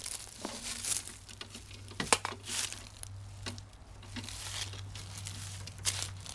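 Footsteps crunching and crinkling through dry fallen leaves, in irregular crackles close to the microphone; the mower engine is not running.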